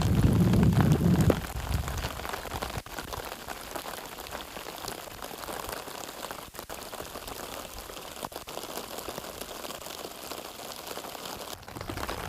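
Heavy rain drumming on a fabric tarp, a steady patter. A louder low rumble fills the first second and a half, then fades.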